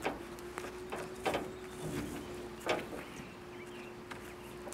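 Handling noise of a rope being worked: a few short sharp clicks and rustles as a loop is pulled out and hooked onto the truck bed's rope hook, over a faint steady hum.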